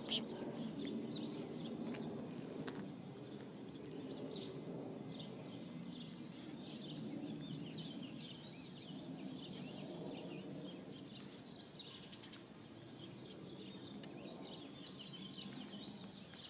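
Small birds chirping in short, scattered calls over a steady low background of outdoor noise.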